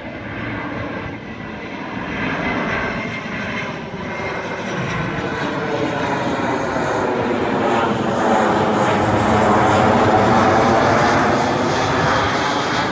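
Airplane flying low overhead, its engine noise growing steadily louder and peaking about eight to eleven seconds in before easing slightly.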